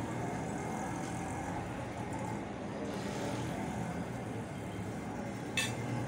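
Steady low background rumble, with one sharp metallic clink near the end as a metal spoon is set down against the plate.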